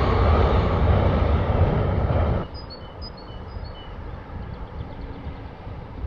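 Passenger train rumbling as it runs over a steel bridge, cut off abruptly about two and a half seconds in. Small birds then chirp a few times over quiet outdoor ambience.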